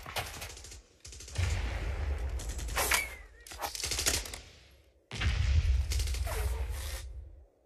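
Movie battle sound effects: bursts of rapid automatic gunfire, broken by short pauses about a second in and just before five seconds, then cutting off near the end.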